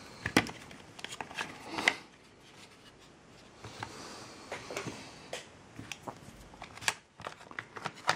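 Handling noise of small parts and tools on a workbench: scattered light clicks and knocks, a few sharper ones in the first two seconds and another about seven seconds in.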